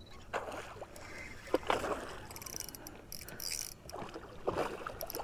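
Hooked wiper (hybrid striped bass) splashing and thrashing at the surface beside the boat as it is played toward the landing net, giving a few irregular water splashes and sloshes.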